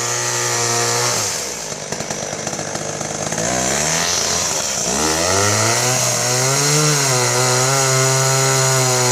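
Two-stroke chainsaw at full throttle cutting into a tree trunk. About a second in the engine note drops and turns rough as the chain bites and bogs in the wood. It then climbs back and holds at high revs from about five seconds in, wavering slightly.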